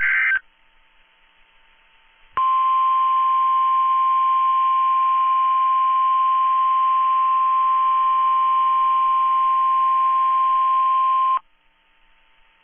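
The tail of a NOAA Weather Radio SAME digital header, a brief warbling data burst, then after about two seconds the weather radio's 1050 Hz warning alarm tone: one steady, loud high tone held for about nine seconds and cut off sharply, sounded as a weekly test of the alert.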